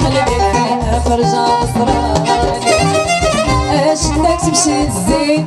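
Moroccan chaabi band playing live: an instrumental passage between sung lines, with a busy melodic line over a steadily pulsing bass and beat.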